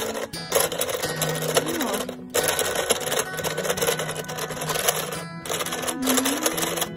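Background music playing over a Cool Maker KumiKreator friendship-bracelet maker running, its motor turning the thread spools as it braids a cord.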